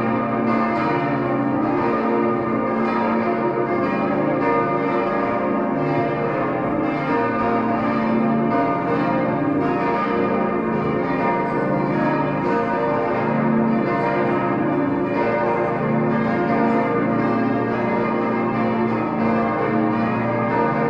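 Full peal (Großplenum) of the Stiftskirche's twenty church bells, all swinging and ringing together. A dense, unbroken tangle of overlapping strikes at many pitches.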